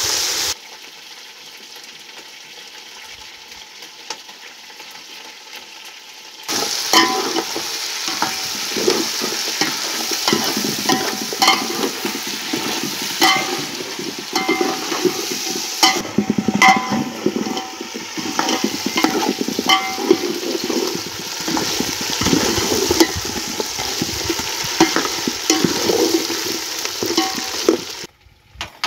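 Chicken feet frying in oil in an aluminium pot, sizzling, while a metal spoon stirs them and clinks repeatedly against the pot. The sizzle is fainter at first, and the stirring and clinking get louder about six seconds in.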